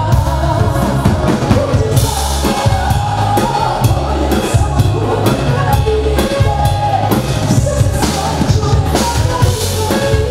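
Live pop-folk band music amplified through a concert PA, with drum kit and bass and a woman singing lead into a microphone.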